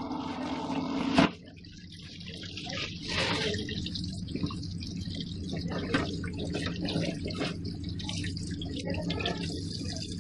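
Tap water running into a plastic colander in a steel sink, broken off by a sharp click about a second in; then wet splashing and dripping as raw pork pieces are rubbed and rinsed by hand in the colander.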